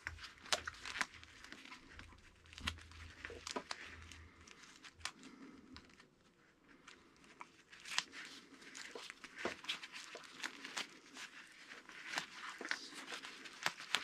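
PVC electrical tape peeling off the roll as it is wrapped around a wire splice, with faint crackling and small clicks from gloved hands handling it, and a short lull near the middle.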